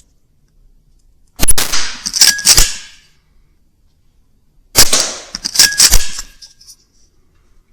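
Two shots from a Weihrauch HW100 .22 PCP air rifle, about three and a half seconds apart. Each shot is followed within about a second by a couple of sharp metallic clacks.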